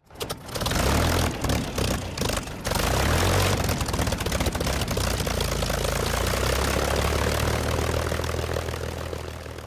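Propeller-driven aircraft's piston engine running, uneven with several brief dropouts in the first three seconds, then steady before fading out near the end.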